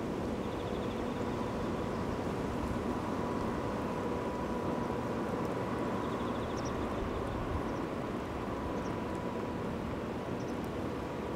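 Steady low outdoor background rumble with a faint constant hum, and a few faint, short high chirps and ticking trills now and then.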